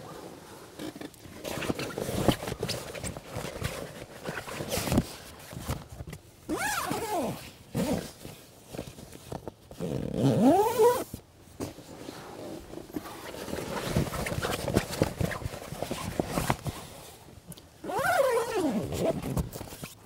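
A zipper pulled in long strokes, three of them clear, its pitch rising or falling as the pull speeds up or slows, with rustling handling noise in between.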